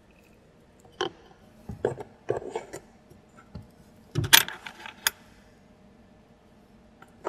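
Small plastic parts of a miniature kitchen set being handled: light clicks and clacks as a tiny cabinet door is worked and small plastic trays knock together while one is taken out, the loudest clatter about four seconds in.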